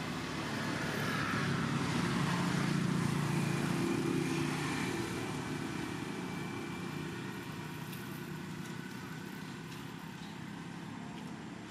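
A motor vehicle's engine going past, growing louder over the first few seconds and then slowly fading away.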